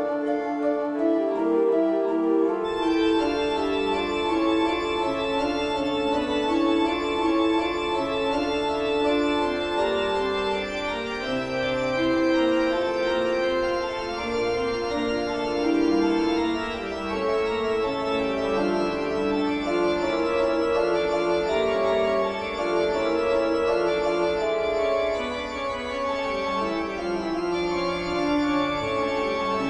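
Instrumental background music of held, overlapping keyboard-like notes, growing fuller about three seconds in.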